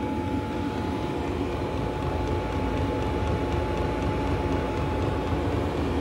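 Chinese diesel parking heater running: a steady hum of its blower and burner with a thin constant whine, and the faint regular ticking of its pulsing fuel pump close by.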